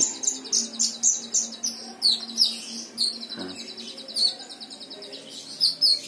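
Caged kolibri ninja (purple-throated sunbird) singing: rapid high trills and quick chirps in near-continuous phrases. The song carries natural mimicry that the keeper takes to be the call of a kemadi bird.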